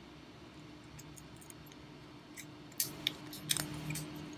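Parts of a disassembled Sigelei 213 box mod being handled, giving a few light clicks and taps in the second half, over a faint steady hum.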